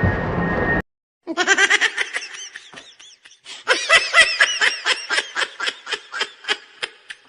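A loud train-horn sound cuts off abruptly within the first second. After a brief silence comes a long run of rapid, pulsing high-pitched laughter in quick ha-ha bursts, with a short lull a little past halfway.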